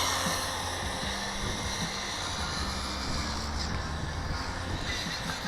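Battery-powered Turnigy rally RC cars racing, their electric motors whining steadily.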